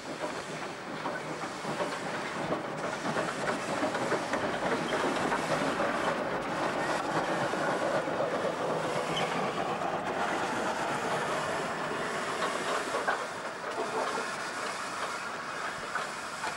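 South African GMAM Garratt steam locomotive moving past, with steam hissing around its cylinders and its wheels rattling over the rails. The sound swells as it goes by and eases off near the end.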